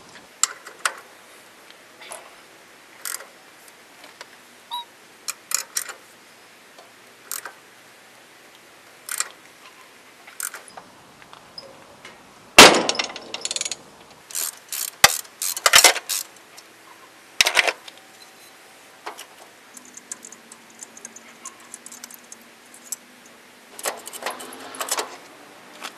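Hand tools working on a small-engine flywheel: scattered metal clicks and light clanks, then a cluster of loud metallic knocks about halfway through, as a socket wrench works the flywheel's centre nut.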